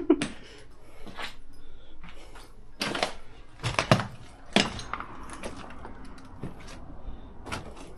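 Irregular footsteps crunching and clattering over loose rubble and debris on a hard floor, a dozen or so sharp scrapes and knocks.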